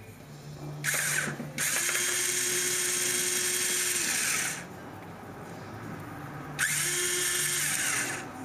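Snap-on power ratchet spinning out water pump bolts on a Chrysler 3.8 L V6, with a steady motor whine and hiss. It gives a short burst about a second in, runs steadily for about three seconds, and runs again for about a second and a half near the end.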